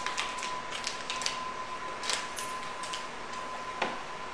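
Paper wrapper of a stick of cold butter crinkling and crackling in many small clicks as it is peeled off by hand; near the end a single knock as a chef's knife cuts down through the butter onto a wooden cutting board. A faint steady high tone sounds under it.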